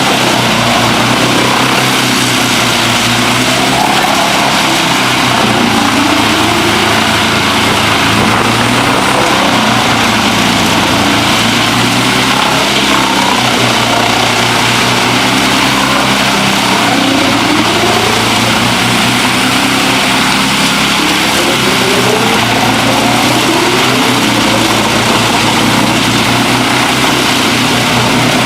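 Wood chipper's engine running loudly and steadily under load, its pitch climbing in short sweeps several times.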